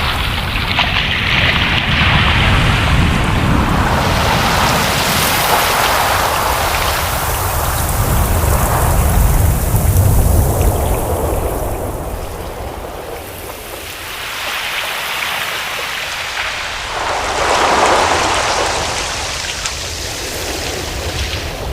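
Ocean surf: waves washing in and drawing back in slow swells, a long surge through the first half, a lull, then another wave breaking near the end.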